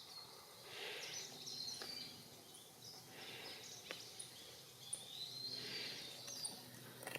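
Small birds chirping now and then over steady outdoor background noise, with a few faint ticks.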